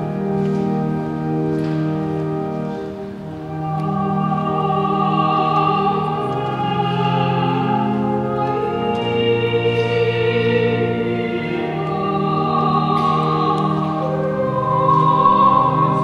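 Church music: classical-style singing over organ accompaniment, slow, with long held notes.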